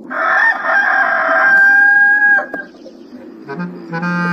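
Rooster crow sound effect: one long call lasting about two and a half seconds that breaks off abruptly. About a second later comes a low held note, like a horn or saxophone, lasting over a second.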